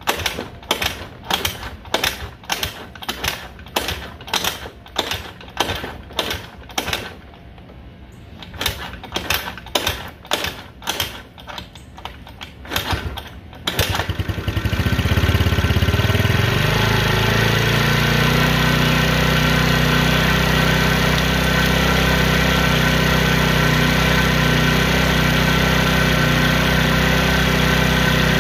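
A 50cc Chinese scooter engine starts about halfway through and then idles steadily. Before it starts there is a series of sharp, regular hits, about two a second, with a short break in the middle.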